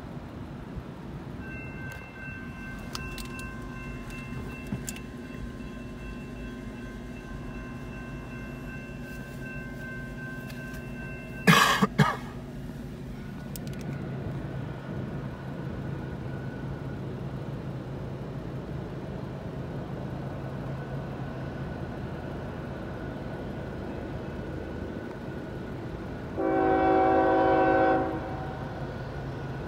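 Norfolk Southern diesel locomotive approaching with a low steady rumble, its air horn sounding one blast of about a second and a half near the end. A steady high whine runs through the first ten seconds, and a loud thump comes about twelve seconds in.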